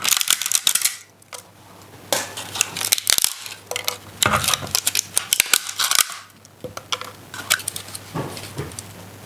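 3D-printed plastic support structures snapping and cracking as they are pulled off the print by hand: bursts of sharp crackling clicks, with the busiest bursts in the first second and again from about four to six seconds in.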